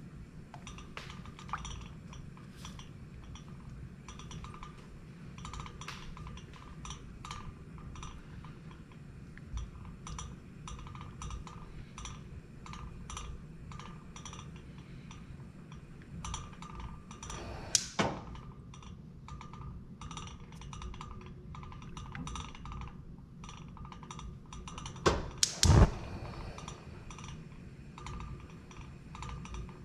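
Silicone spatula stirring a cream-and-milk mixture in a stainless steel pot as gelatin dissolves, with small ticks and scrapes against the pot and a low steady hum underneath. There is one louder knock on the pot a little past halfway and a louder double knock a few seconds later.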